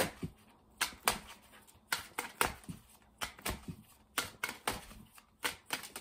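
Tarot deck being shuffled overhand by hand: cards slapping into the pile in short, irregular clicks, about three a second.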